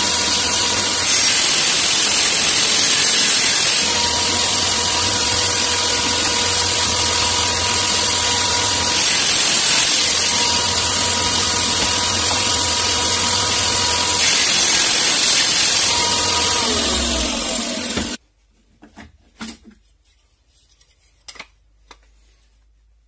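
Homemade table saw running, its circular blade ripping thin wooden strips along the fence, a steady motor hum under the louder noise of the cuts. Near the end the pitch falls and the sound cuts off, leaving a few light knocks of wood being handled.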